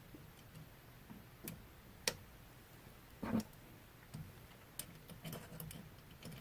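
Faint, scattered clicks and one soft knock of metal parts and a small hand tool as a router is clamped and tightened into its CNC mount.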